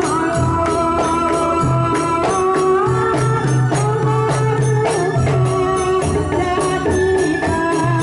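Ndolalak ensemble music: an electronic keyboard plays a melody over a steady beat of hand drums and jingling tambourine-like percussion.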